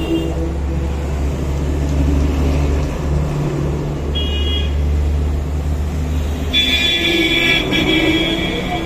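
Road traffic: a steady low engine rumble with vehicle horns honking, a short toot about four seconds in and a longer one near the end.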